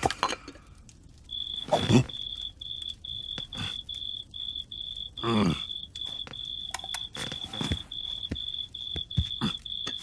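Cartoon cricket chirping: a steady run of short, high, single-pitched chirps, about three a second, starting a second or so in. Twice a low voice-like groan falls in pitch, about two seconds in and again about five seconds in.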